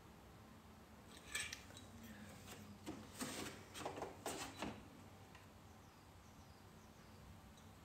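Faint handling of a glass water bottle and its screw cap: a single click, then a short run of clinks and rattles.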